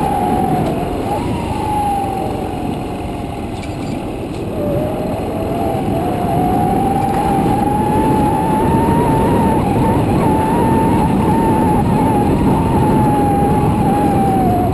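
Motorcycle engine running on the move, its whine dipping a couple of seconds in and then rising and holding as it slows and speeds up again, with a heavy rumble of wind on the microphone.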